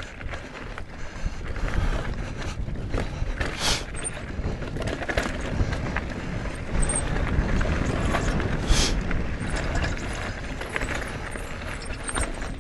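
Bike ride on a dirt trail: steady wind rumble and rattling from the moving bike, with two short sniffs, one about four seconds in and one near nine seconds, and a few faint high squeaks.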